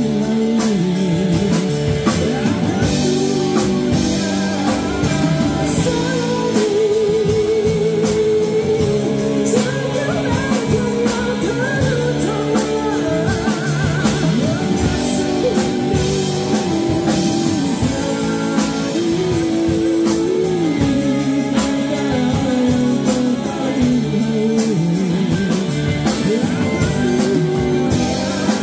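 A band playing a song: a singer with a wavering, vibrato voice over guitar and drum kit, with a steady beat.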